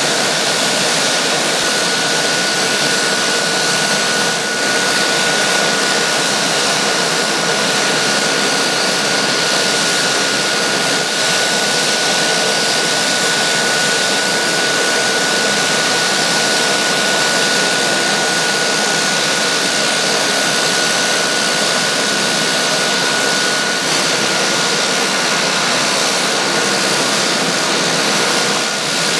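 Several Pilatus PC-9/A turboprops, PT6A engines, idling on the ground with propellers turning: a loud, steady rush of turbine and propeller noise with a steady high whine over it that fades near the end.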